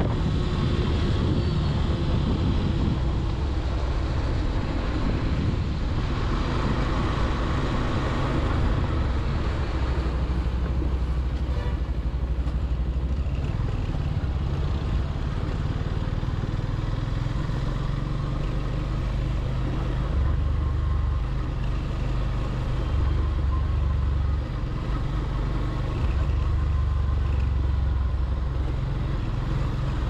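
Motorcycle engine running while the bike is ridden, its note shifting several times as the rider eases off and opens the throttle.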